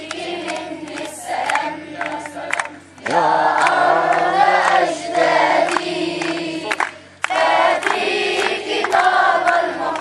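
A group of children singing together in unison, with short sharp claps through the song.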